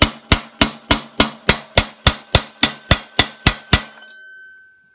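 Hammer striking a long steel pin punch in a steady run of blows, about three and a half a second, driving the rear sight block pin out of a Vepr 12 shotgun: the pin is moving out. The blows stop a little before the end, leaving a high ringing note that fades.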